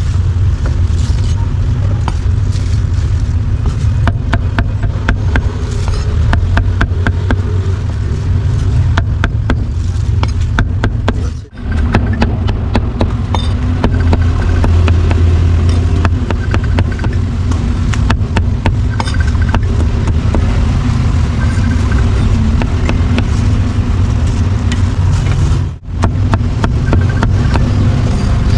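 A cleaver chopping roast pork on a wooden chopping board, a long run of sharp knocks, over a steady low rumble of street traffic. The sound drops out briefly twice.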